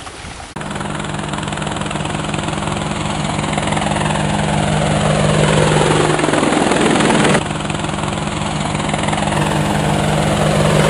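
Quadcopter drone rotor buzz as a sound effect: a loud, steady hum of several pitches that starts abruptly about half a second in. From about four seconds a whoosh sweeps down in pitch and cuts off suddenly about seven seconds in, and the hum carries on.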